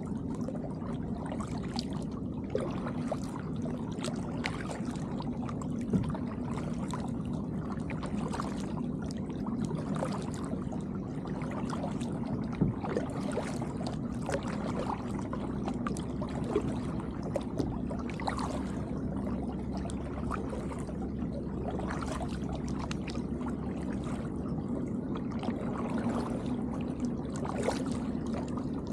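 Kayak paddle strokes: the blades dip and splash, water drips and trickles off them, and water laps against the hull of a plastic Tucktec folding kayak, with irregular small splashes over a steady low hum.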